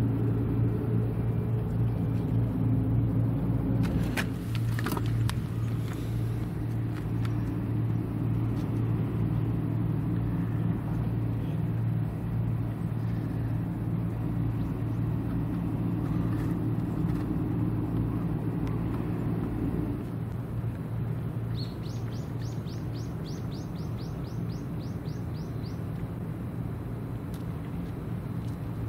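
Steady low engine drone with a constant hum, easing off about two-thirds of the way through. A single sharp knock comes about four seconds in, and a rapid run of about a dozen short rising high chirps comes near the end.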